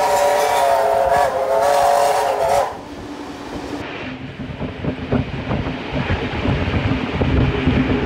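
Steam locomotive whistle sounding one long blast that cuts off about two and a half seconds in, followed by the running noise of the train with scattered clicks from the wheels and track.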